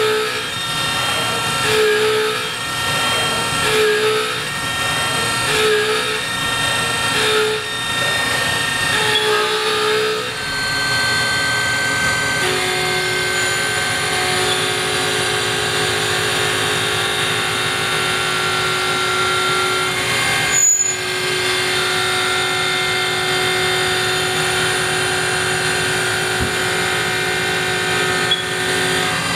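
A Haas VF-4 CNC mill's spindle drives an IMCO IPT7 carbide end mill through 1018 steel, cutting dry at 200 IPM: a loud, steady, high-pitched cutting whine made of several tones. For the first ten seconds or so the whine swells and eases about every two seconds; after that it holds steady, with one short break a little after twenty seconds.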